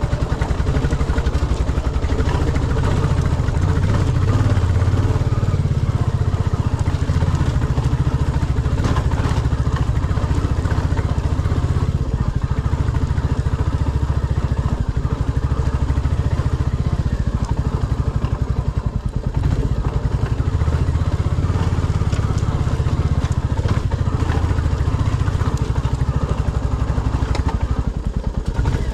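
Royal Enfield Classic 350's single-cylinder engine running steadily as the bike is ridden, a deep even exhaust beat with occasional light knocks and clatter.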